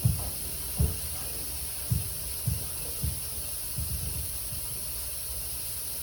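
The bass beat of a rap song thumps irregularly and dies away about four seconds in, leaving a steady hiss.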